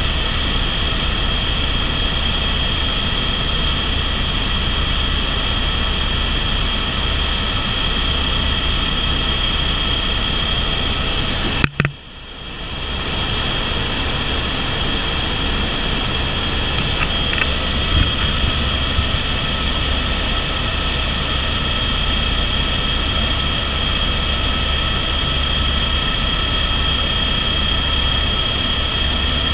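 Cabin noise of an Airbus AS350 (H125) single-engine turbine helicopter in cruise: a steady low rotor rumble with a steady high whine. About twelve seconds in, a sharp knock, after which the sound dips briefly and comes back.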